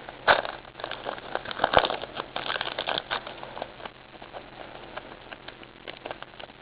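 Crinkling and rustling of a baseball card pack's wrapper being torn open and the cards handled, busiest in the first few seconds and then quieter.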